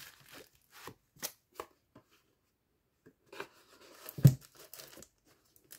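Hands packing away watch packaging: scattered light taps and rustles of plastic wrap and a cardboard box sleeve, with one dull thump a little past four seconds in as the box is pushed together or set down on the desk.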